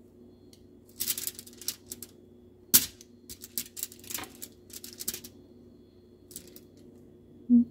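Kitchen tongs clicking and scraping against crinkling aluminium foil as chicken tikka pieces are picked up and pushed into a crisp fried bread pocket. It is an irregular run of crackly rustles and clicks, with one sharp click about three seconds in. A short low thump comes near the end.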